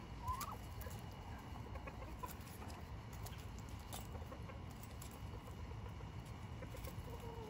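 Backyard poultry clucking faintly, with one short rising call about half a second in.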